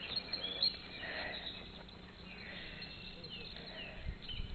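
Birds chirping: short, quick calls, several in a row, over a faint outdoor hiss. A brief low rumble near the end.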